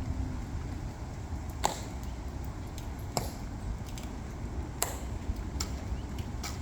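Sharp clicks of a ceremonial guard's metal-tapped shoe heels striking the stone plaza. There are three loud clicks about a second and a half apart, then a few fainter ones near the end, over a low outdoor rumble.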